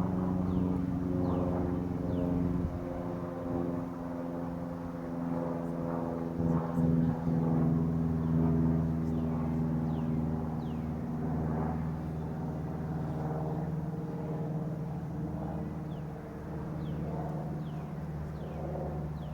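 A mass of honeybees buzzing: a steady drone of thousands of wings, with a few faint high chirps now and then.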